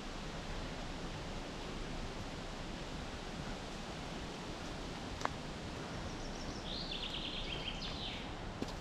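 Steady rushing outdoor noise, with a single sharp click about five seconds in and a short run of bird chirps near the end.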